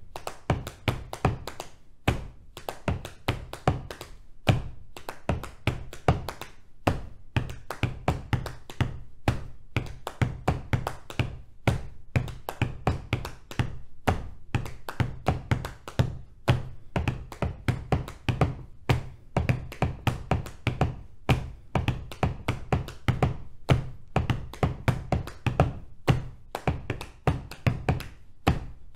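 Body percussion: hands tapping on the thighs and feet tapping the floor in an interlocking 5:4:3:2 polyrhythm, a dense, steady pattern of sharp taps and low thuds.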